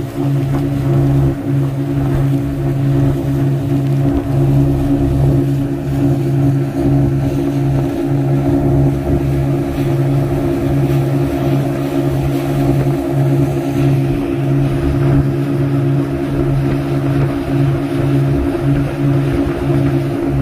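Small motorboat's engine running at a steady speed while under way, with water rushing past the hull.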